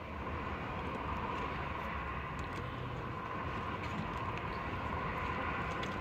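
Steady machine drone, with a few faint clicks of a wire crimping tool being worked on crimp caps.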